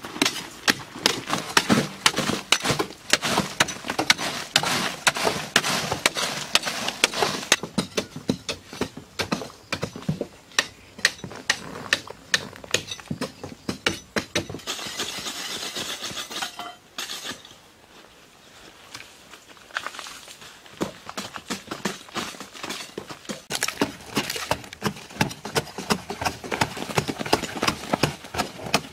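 Machete-like metal blades chopping and scraping into hard-packed earth walls: rapid, uneven strikes and rasping scrapes, easing off for a few seconds about two-thirds of the way through.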